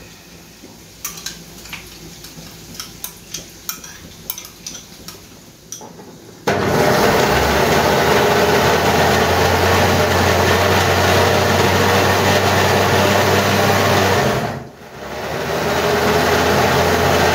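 A few light clicks and knocks as the jar is fitted onto the base, then an electric jug blender switches on about six seconds in. It runs steadily, blending fried onions, yoghurt and soaked poppy seeds into a paste. Near the end it stops briefly and starts again.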